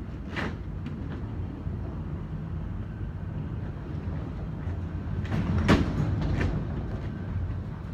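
Typhoon wind rumbling on the microphone, with louder gusts about half a second in and again around five to six seconds in.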